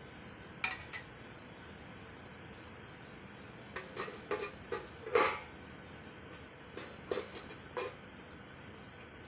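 Dishes and kitchen utensils clinking in short sharp knocks: two about a second in, a cluster of five around four to five seconds in (the loudest among them), and four more around seven to eight seconds in.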